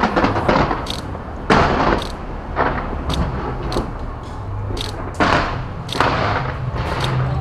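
Aerial fireworks bursting in a quick series of booms, each with a crackling, fading tail, with sharper pops in between and a steady low rumble underneath.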